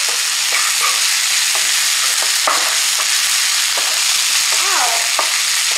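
Chopped onion and chili spice paste sizzling steadily in hot oil in a frying pan, with a spatula stirring and scraping it now and then.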